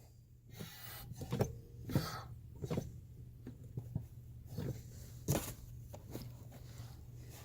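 Irregular light clicks and knocks from hands working parts and tools under a car's dashboard, the loudest about five seconds in, over a steady low hum.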